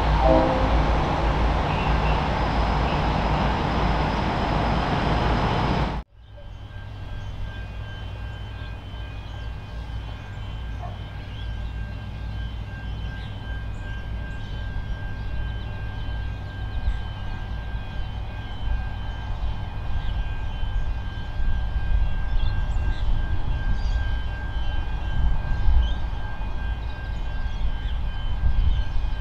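Diesel-electric locomotives hauling a passenger train run steadily for about six seconds, then stop suddenly. A quieter low rumble follows and slowly grows louder as a train approaches.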